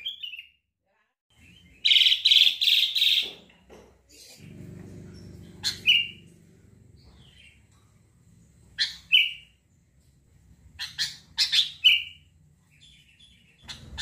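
Sooty-headed bulbul (kutilang) calling: a loud burst of quick chirping notes about two seconds in, then short single chirps every few seconds. A faint low hum runs underneath from about four seconds in.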